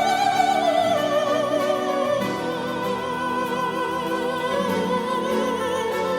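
Background music: a classical, operatic-style piece with a sung or bowed melody held with wide vibrato over sustained orchestral chords.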